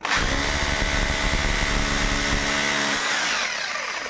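Electric power tool motor running at full speed, then released about three seconds in, its pitch sliding down as it spins down.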